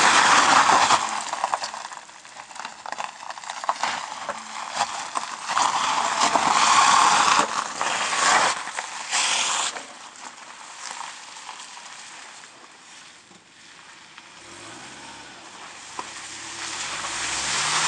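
First-generation Subaru Forester's tyres spinning and scrabbling on bare rock, flinging grit and gravel in a hissing, crackling spray that comes in loud bursts through the first half. Near the end the flat-four engine note rises as the car accelerates.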